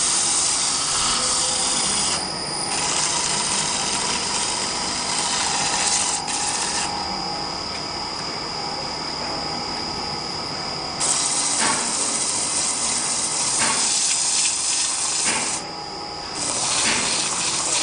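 CNC wood lathe turning a wooden blank: the cutter hisses against the spinning wood over a steady high whine, the cutting noise growing louder and easing off in stretches as the tool moves along the work.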